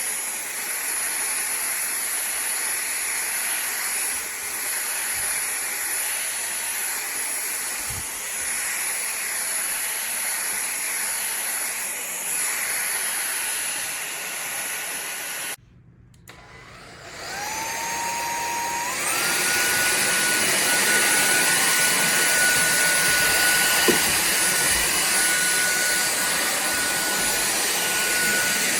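Powerffy N10 cordless stick vacuum running with a steady rush of air and a thin high motor whine. About halfway through it cuts out. It then spins back up with a rising whine that steps up once more a couple of seconds later to a higher pitch and a louder run, like switching to a stronger power setting.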